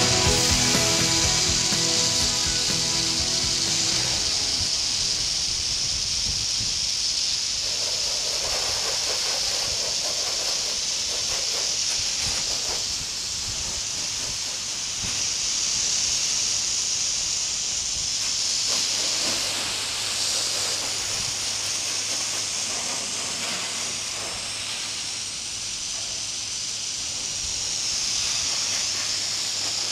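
Water spraying from a hose nozzle onto a helicopter's fuselage and the pavement, a steady hiss with splashing. Music fades out in the first few seconds.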